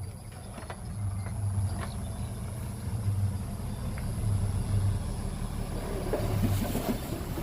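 Heavy earthmoving machine's engine running, a low throb that swells and fades every second or so.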